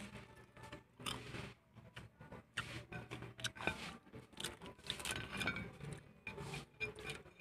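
Close-miked crunching and chewing of crispy breaded fried chicken, with crackling as the crust is torn apart by hand: a run of irregular small crackles and clicks.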